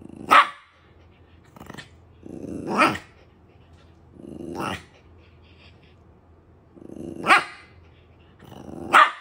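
Shiba Inu growling and barking: about five short growls, each rising into a sharp bark, a couple of seconds apart.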